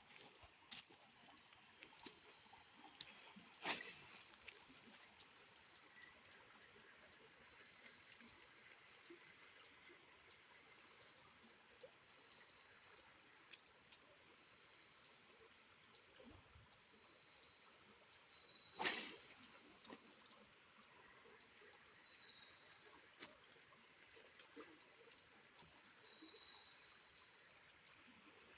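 Steady, high-pitched chorus of insects, with a second insect call just below it pulsing in an even, repeating rhythm. Two sharp clicks break through, about four seconds in and again near nineteen seconds.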